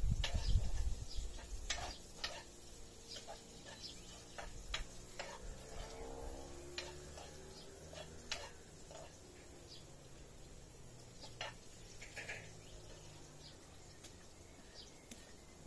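Scattered light clicks and taps of food being handled on a plate, with birds calling now and then. A low rumble in the first second.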